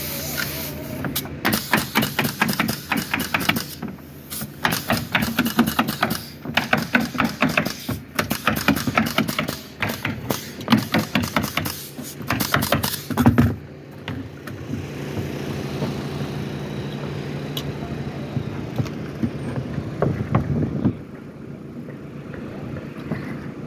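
Pneumatic nailer firing rapid runs of nails into OSB sheathing, several shots a second, stopping about 13 seconds in. A steady machine hum runs underneath and carries on alone afterwards, dropping in level near the end.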